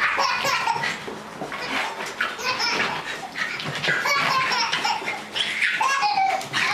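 Baby laughing in repeated bursts of giggles.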